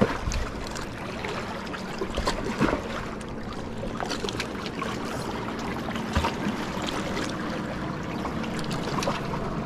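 Lake water lapping and trickling against a rocky shoreline, with a few small clicks and taps scattered through it.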